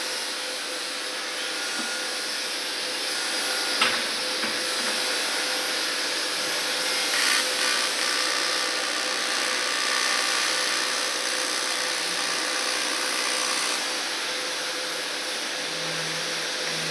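Aluminium welding in progress: a steady hiss with a faint steady hum, and one sharp click about four seconds in.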